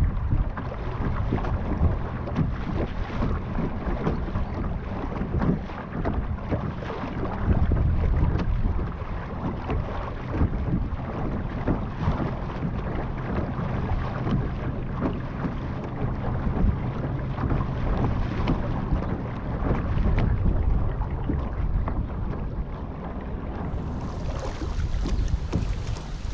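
Wind buffeting the microphone and water rushing and splashing along the hull of a motorized kayak under way, in uneven gusts.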